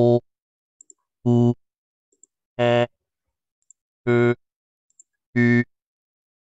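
Synthetic vowel and syllable sounds from an articulatory speech synthesizer, the manually selected, most intelligible samples of a simulated vocal learning study, played one at a time: five short sounds about a second and a half apart, each at a flat, even pitch. Faint mouse clicks fall in the silences between them.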